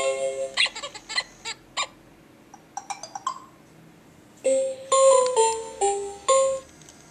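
Electronic tune from an Iggle Piggle interactive plush toy's speaker, in two short phrases of clear stepped notes, the second stepping downward. Between them come a run of short sharp clicks and a few faint squeaky blips.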